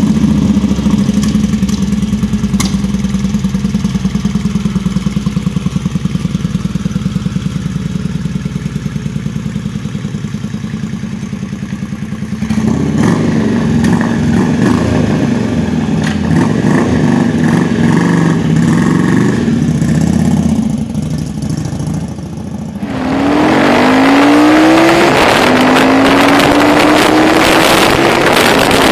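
Kawasaki Vulcan VN750's V-twin running with a steady pulsing exhaust note, then revving more loudly. After a short dip about 21 seconds in, it pulls away under acceleration, its pitch climbing, breaking at a gear change and climbing again, with heavy wind noise on the microphone.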